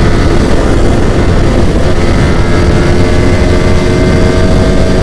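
Yamaha R15 V4M motorcycle's single-cylinder engine running at a steady cruising speed, its note holding a constant pitch, under heavy wind rush on the rider-mounted microphone.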